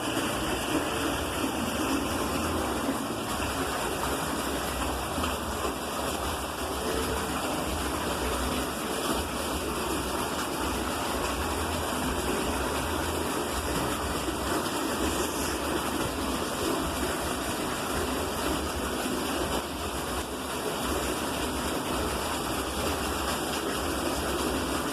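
Heavy rain pouring down, a steady, unbroken rush of water.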